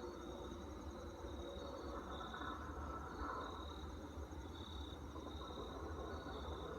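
Insects chirping: a continuous high trill with a short high-pitched pulse repeating about once a second, over a steady low rumble.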